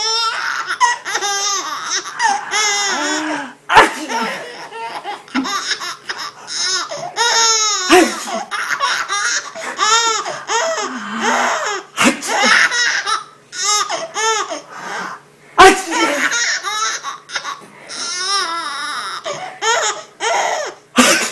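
A baby girl laughing hard in long chains of giggles and belly laughs, set off by a man's sharp sneezes that come about every four seconds.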